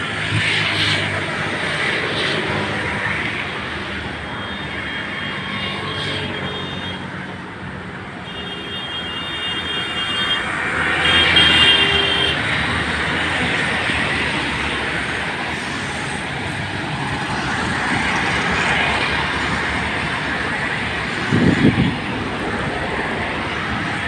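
Steady hum of motor traffic, swelling and fading as vehicles pass, with a few brief thin high tones in the first half and a short low rumble near the end.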